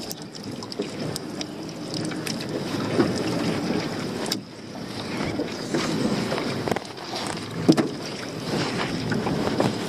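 Wet lobster-pot rope hauled hand over hand into a dinghy, rasping through rubber gloves and falling in coils onto the deck, with scattered knocks, the loudest a little before the end.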